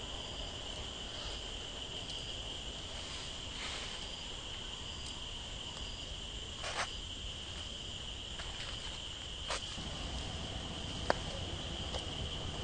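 Steady, high-pitched insect chorus droning without a break, with faint regular chirps above it. A few sharp clicks stand out over it, the clearest about seven and eleven seconds in.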